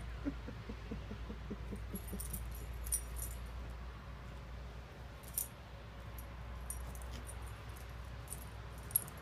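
Small metal tags on a puppy's collar jingling in irregular clusters of light ticks as the dog hops and leaps, over a steady low rumble.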